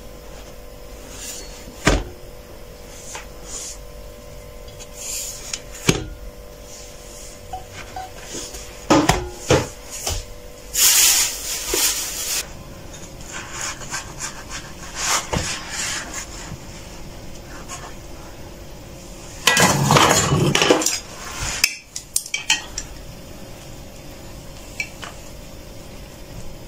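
Kitchen work sounds: scattered knocks and clinks of utensils on a metal pan and of a cleaver and chopsticks on a wooden chopping board. There are two longer stretches of scraping or rustling, a little before halfway and again about three-quarters of the way in, over a faint steady hum.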